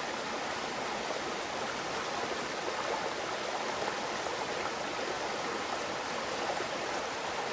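Creek water running and babbling in a steady, even rush.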